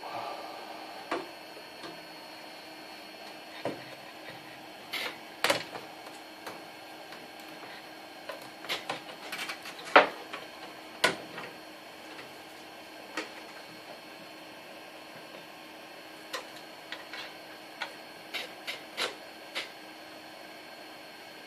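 Irregular clicks and light knocks of hard plastic and metal computer parts being handled while a motherboard is fitted into a PC case, with the loudest knock about halfway through.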